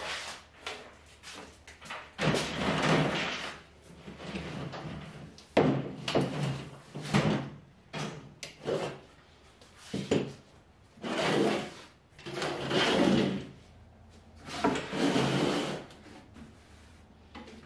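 A homemade peat moss spreader drum, plywood ends wrapped in wire mesh, being lifted, set down and shifted on a wooden workbench: several separate bouts of wooden knocking and scraping, each a second or two long.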